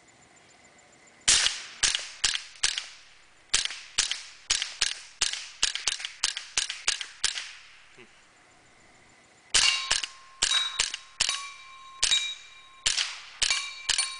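Suppressed short-barrelled AR rifle (Liberty Mystic suppressor) firing two quick strings of semi-automatic shots, each about fifteen rounds, with a pause of about two seconds between them. In the second string, steel targets ring on after the hits.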